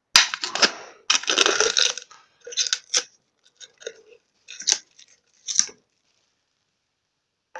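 Cardboard firework tube being handled and its end cap worked off: irregular crunching and crackling with a few sharp clicks, stopping about six seconds in.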